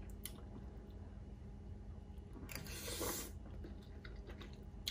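A person eating pho noodles close to the microphone: soft chewing, with one short slurp about two and a half seconds in.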